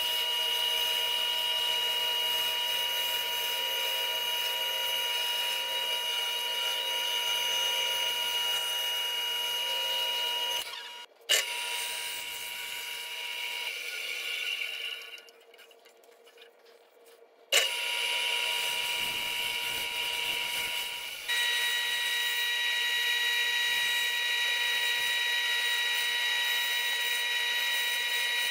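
Bandsaw running and cutting through thick wood, a steady motor and blade whine with high, even tones. It breaks off with a sharp click about a third of the way in, goes nearly quiet for a couple of seconds in the middle, then starts again with another click, its pitch shifting slightly later on.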